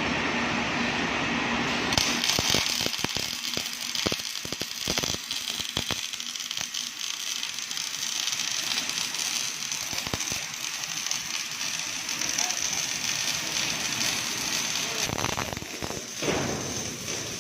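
Automatic welding machine's arc hissing with irregular sharp crackles, heaviest in the first few seconds, as it welds a hydraulic cylinder.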